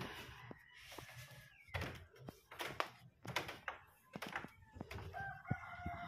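A rooster crows near the end, one long call, over a string of scattered knocks and thumps.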